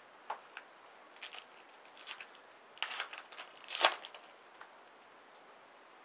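Trading cards being handled at a table: faint, scattered rustles and flicks of card stock and wrapper as cards are sorted and laid down, with a louder crinkle about four seconds in.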